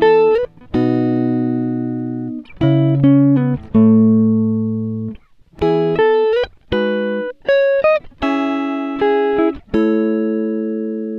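Background music: a melody of single notes, each struck and then fading, in short phrases with brief gaps between them.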